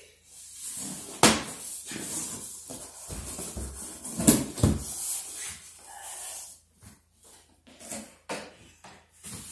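A large cardboard shipping box being handled: cardboard scraping and rubbing, with two sharp thumps about a second in and again around four seconds in, then quieter scrapes and small taps.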